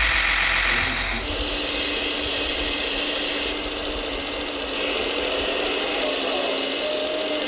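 Hydraulic pump and gears of a radio-controlled Komatsu model excavator whirring steadily with a fast, fine mechanical ticking as it works its arm and bucket; a faint tone rises in pitch near the end. For about the first second there is a different, louder mechanical noise.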